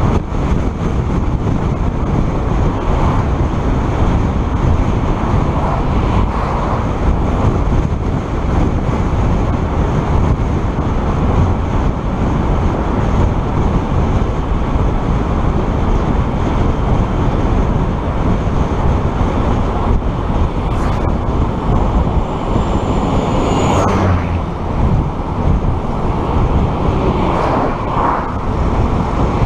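Steady road and wind noise from a moving car, heaviest in the low end, with swells as oncoming vehicles pass. About three-quarters of the way through, a brief high thin tone falls away in pitch.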